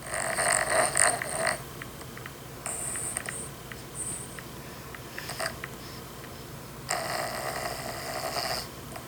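A pet dog snoring in its sleep: a series of snoring breaths of uneven length. The loudest comes at the start, shorter ones follow, and another long one comes about seven seconds in.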